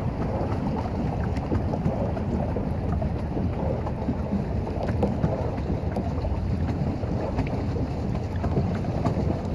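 Steady low rumble of wind buffeting the microphone, over the splashing of water churned by a pedal boat's paddle wheel, with faint scattered ticks of water.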